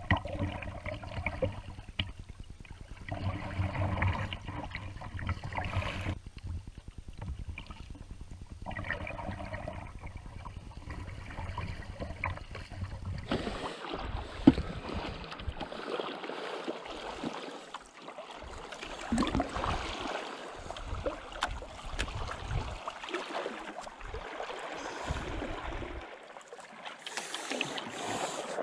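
Kayak paddling down a shallow river: water rippling and gurgling around the hull and paddle blades, with a low rumble through the first half and one sharp knock about halfway through.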